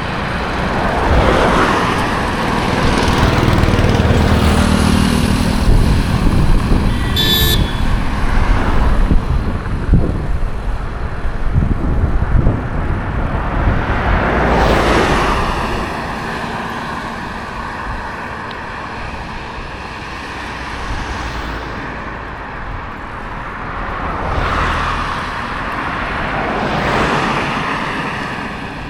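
Road traffic passing close by, several vehicles in turn, each swelling and fading as it goes past. About seven seconds in there is a brief, high horn beep.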